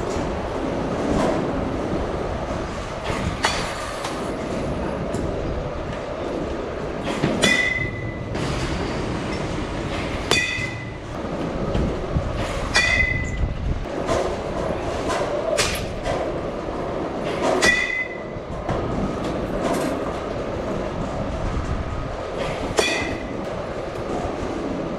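Metal baseball bat pinging as it hits pitched balls: about five ringing cracks, several seconds apart, with a few sharper clicks between them. Under them runs a steady mechanical rumble.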